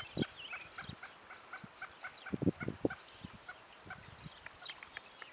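Wild birds calling: one repeats a short chirp about five times a second while others add higher swooping notes. A few low thumps, the loudest cluster about two and a half seconds in.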